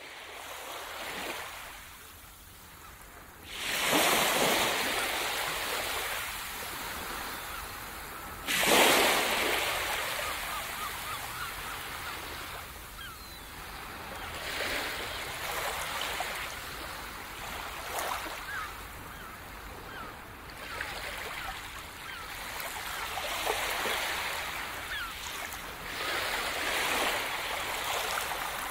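Ocean surf: waves washing onto a beach, with two big swells of surf about 4 and 9 seconds in, then smaller waves coming in every few seconds.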